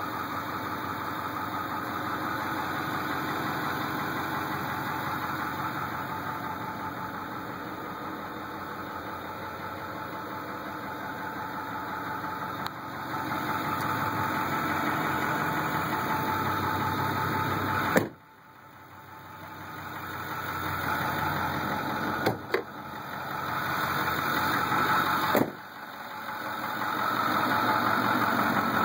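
Ford F-250 Power Stroke V8 turbodiesel idling steadily. About 18 seconds in, a sharp clunk comes and the engine sound drops abruptly, then builds back up. Two more clunks follow near 22 and 25 seconds.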